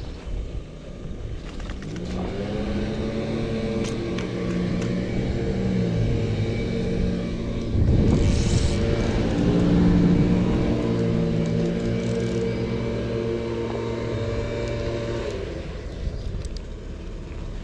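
A motor vehicle's engine runs close by for about thirteen seconds, its pitch rising and falling as it speeds up and slows, over a steady low rumble. A louder rumble comes about eight to ten seconds in.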